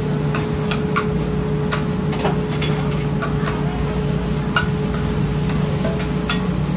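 Metal spatulas clinking and tapping irregularly on an oyster-omelette griddle, about one or two sharp clicks a second, over a steady low hum.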